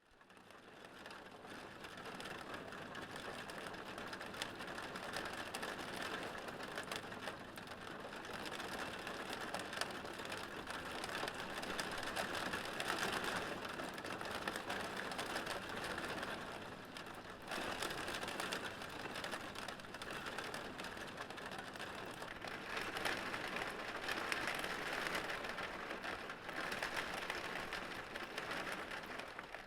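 Rain hitting a window pane: a dense, rapid patter of drops on the glass. It fades in over the first couple of seconds and eases briefly a little past halfway.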